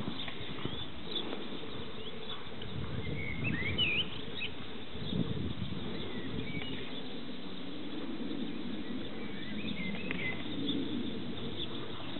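Small birds chirping in short calls that glide up and down, in two spells, over faint, distant hoofbeats of a horse cantering on sand.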